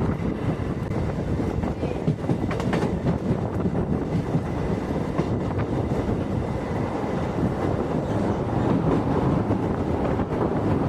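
Passenger train running steadily along the track, a continuous rumble of wheels on rails with a few clacks over rail joints about two to three seconds in.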